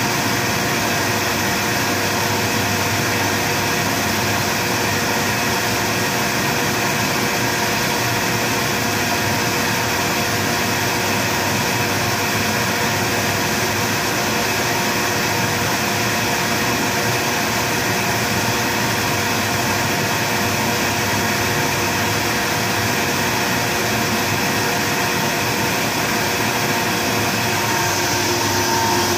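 Kaeser SM11 10 hp rotary screw air compressor running, a steady even hum with several constant tones over a broad hiss. It gets slightly louder near the end.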